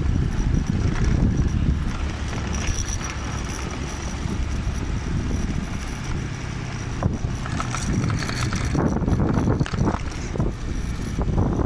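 Wind buffeting the microphone over the low rumble of a motorbike riding along a road, with a few brief knocks or rattles about seven to ten seconds in.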